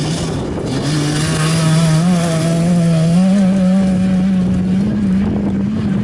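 Rally car passing at speed with its engine under hard acceleration. The engine note climbs slowly and steadily, and is loudest a couple of seconds in.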